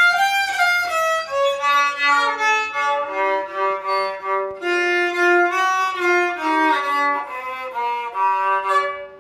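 A newly made rabeca, the Brazilian folk fiddle, bowed in a short melody of held and moving notes.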